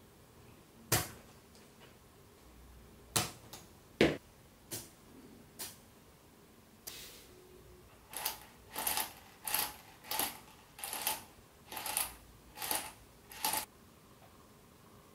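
Small aluminium and steel parts of a miniature solenoid engine clicking and tapping as they are handled and fitted together. A few scattered sharp clicks come first. Then, from about the middle on, a run of about ten evenly spaced clicks, a little under two a second.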